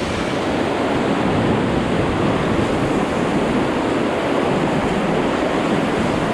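Fast-flowing river water of the Beas rushing steadily, a loud even roar of whitewater.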